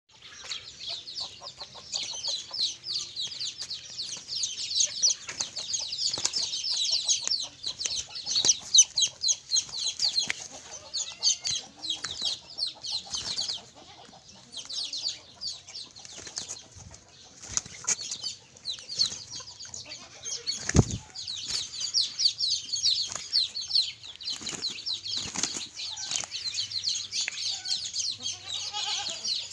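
Two hens fighting: wings flapping and feet scuffling in bouts, with one sharp knock about two-thirds of the way through. A constant high, rapid chirping runs underneath.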